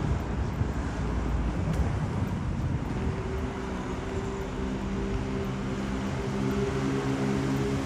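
Street traffic rumble. From about three seconds in, a vehicle engine running steadily adds a low, even drone.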